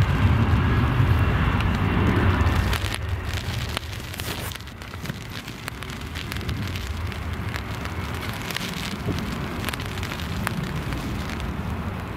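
Storm-force wind buffeting the microphone: a loud low rumble with crackle, heaviest for about the first three seconds, then dropping suddenly to a steadier, lower rumble.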